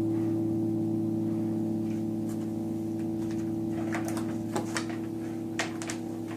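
Electric guitar chord from a Stratocaster ringing out and slowly fading through a Yamaha RA-200 rotary-speaker amp, with a slight rotating-speaker warble. A few faint string or pick clicks come in the second half.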